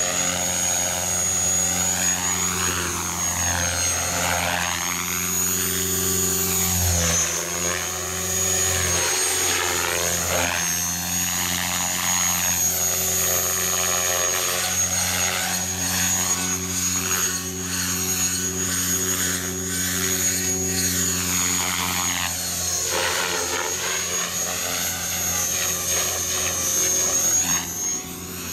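Radio-controlled helicopter in flight: rotor and drive running steadily with a high steady whine. The sound sweeps and phases every few seconds as the model passes back and forth and changes height.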